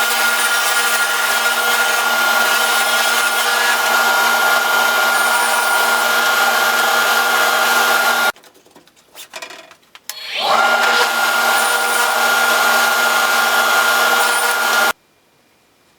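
Electric power tool running and cutting wood, a steady noise with a high whine. It cuts out about eight seconds in, spins back up with a rising whine about two seconds later, runs again and stops abruptly near the end.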